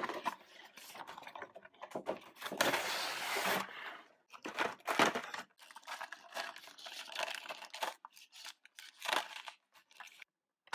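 Clear plastic toy packaging being crinkled and torn open by hand: irregular rustling, with a longer continuous stretch about two seconds in and scattered short crackles later.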